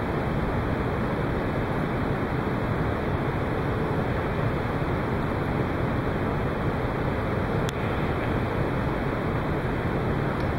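Steady rushing background noise in a snooker hall, with one faint click of snooker balls being struck about three quarters of the way through as a shot is played.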